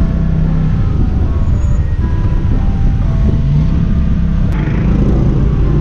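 A motor vehicle's engine hums steadily under a loud, low rumble of wind and road noise while riding in an open-sided tuk-tuk through city traffic. A brief hiss comes about four and a half seconds in.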